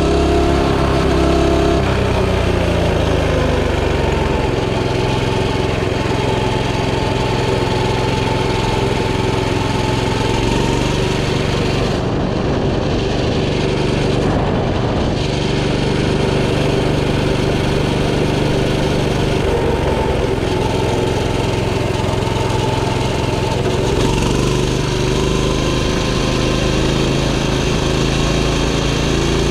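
Coleman CT200U minibike's small single-cylinder engine running with nobody on the throttle, which is stuck open. Its speed falls over the first few seconds, then holds fairly steady, and shifts again about 24 seconds in.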